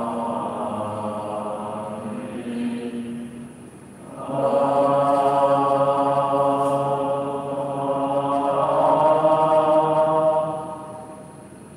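Buddhist devotional chanting in long, sustained notes. One phrase fades out about three seconds in, a long phrase follows from about four seconds in, and it pauses again near the end.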